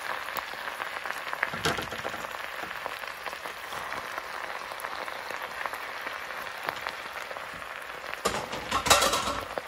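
Crackling rustle of fresh leafy greens being tossed and turned by hand in a bowl, with louder flurries about two seconds in and again near the end.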